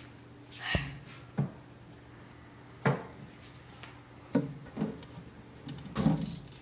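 About six light, scattered knocks and clicks, the strongest near the end, over a faint steady hum.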